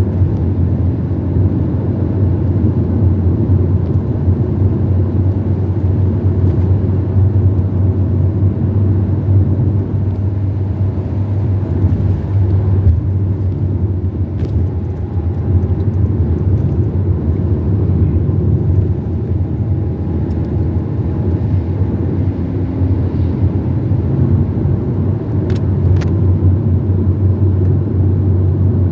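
Steady low rumble of a car travelling along the road, engine and tyre noise heard from inside the cabin.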